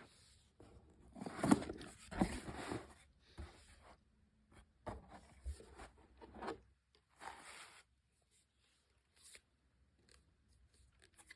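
Packaging being handled and torn open in an unboxing: rustling, scraping and tearing in several bursts over the first eight seconds, the loudest about a second and a half in, then only a few faint clicks.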